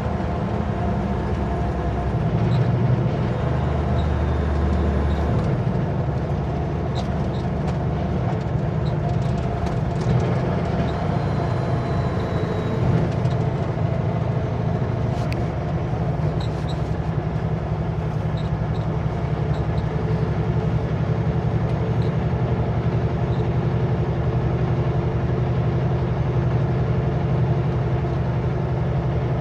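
Kenworth W900L semi truck's diesel engine running steadily at highway cruise, heard from the cab with road noise, and a few scattered faint clicks.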